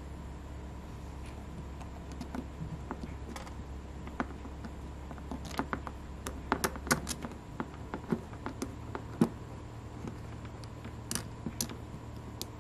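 Small irregular clicks and taps of hands handling a 3D-printed plastic axle assembly and pushing a thin metal pin into it. The clicks come thickest through the middle, with a few more near the end.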